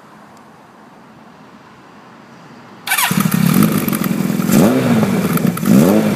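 Kawasaki motorcycle engine starting on the electric starter about three seconds in, catching at once and idling, revved briefly twice near the end.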